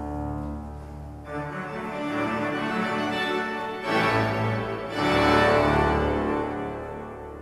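Cavaillé-Coll pipe organ playing sustained full chords, which change about a second in and again at about four and five seconds. The last and loudest chord, a closing chord, dies away in the church's reverberation near the end.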